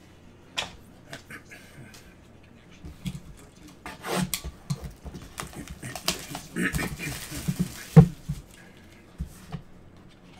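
Cardboard trading-card boxes being handled on a table: scattered taps and knocks as boxes are shuffled and set down, a stretch of rustling about two-thirds of the way in, and one sharp knock about eight seconds in.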